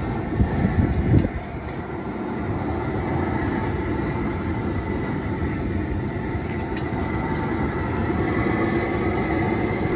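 Propane burner of a LoCo crawfish cooker running with a steady roar under the boil pot, with a few knocks in the first second or so.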